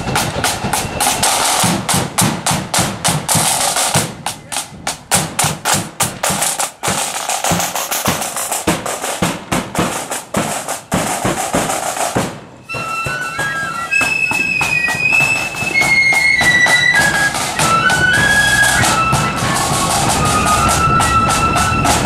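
Marching flute band: side drums beat a march rhythm on their own, then about twelve seconds in the flutes come in with a stepping melody over the drums.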